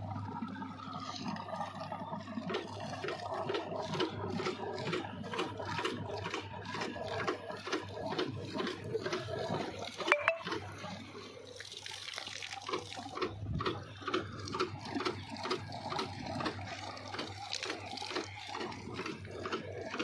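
Water gushing and splashing through an irrigation pipe outlet, with a stream spurting from a leaking side valve, a busy irregular gurgle and splatter. A single sharp click about halfway through.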